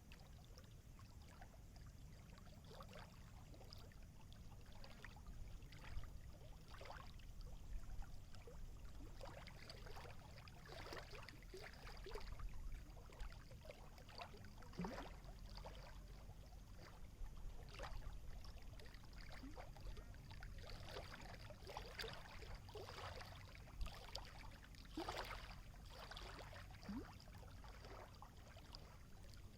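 Small water waves lapping and splashing, with irregular gurgles and slaps over a low rumble and a faint steady high hiss.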